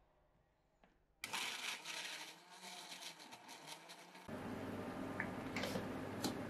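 After a second of near silence, a blender chops tomatoes and pineapple with a crackly rattling. About four seconds in this gives way to a pot of water bubbling at a rolling boil, over a steady low hum.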